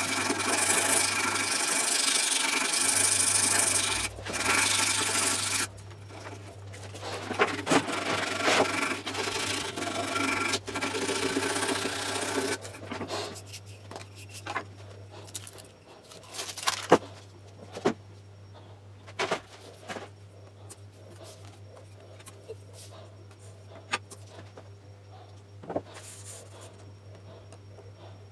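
Sandpaper rubbing on a carved wooden toy-plane fuselage. It is a loud, steady rasp for the first few seconds, then uneven back-and-forth strokes until about twelve seconds in. After that it is much quieter, with scattered knocks and taps of wood being handled and set down on the bench.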